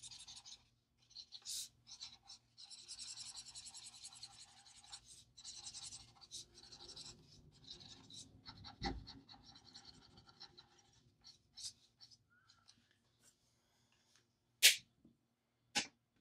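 Alcohol marker tip scratching and rubbing across paper in stretches as an area is coloured over, dying away after about 11 seconds. Near the end come two sharp, loud clicks.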